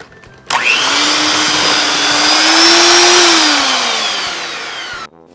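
Electric hand mixer beating flour into butter, cream cheese and sugar for a stiff cookie dough. The motor switches on suddenly about half a second in, its whine rising slightly, then sinking in pitch over the last couple of seconds before it cuts off shortly before the end.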